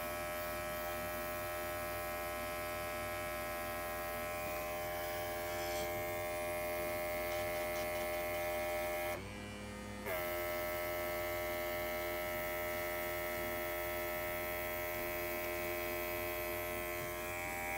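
Small electric airbrush compressor running with a steady hum, feeding air to an airbrush. About nine seconds in its pitch drops and the sound falls away for about a second, then it picks back up to speed.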